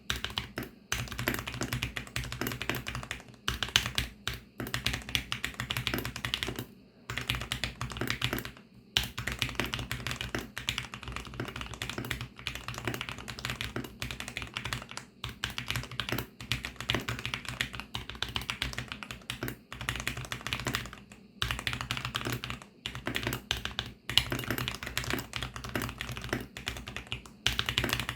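Typing on a VARO V68 mechanical keyboard with VARO Panda linear switches, lubed with Krytox 205 on the stems and Krytox 105 on the springs. It is a fast, continuous run of key clacks, broken by brief pauses every few seconds.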